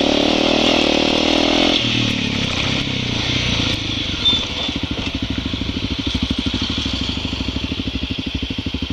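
Dirt bike engine pulling under throttle, then the revs drop about two seconds in. It runs on at low revs with an even, rapid putter and a steady hiss over it.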